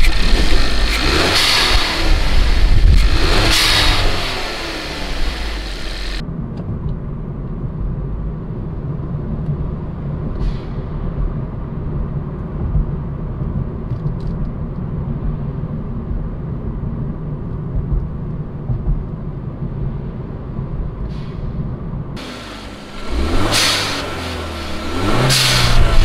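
Hyundai 1.6-litre turbocharged four-cylinder revved twice, each blip followed by the hiss of the GFB Respons blow-off valve venting, set roughly 30% atmospheric and 70% recirculated. This gives way to the steady low rumble of the engine and road inside the cabin while driving. Near the end come two more revs, each with a venting hiss.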